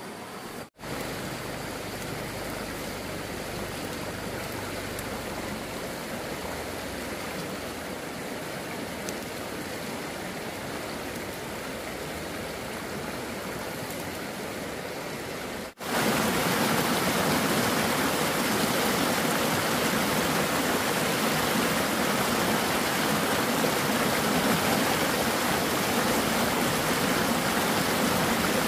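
Shallow mountain stream flowing over rocks: a steady rush of water. It drops out for an instant twice, and after the second break, about sixteen seconds in, it is louder.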